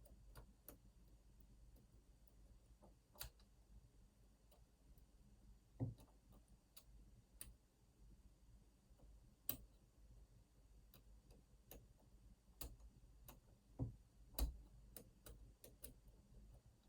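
Faint, irregular small clicks of lock-picking tools working inside an Opnus TEX lock cylinder, with a few louder clicks among them.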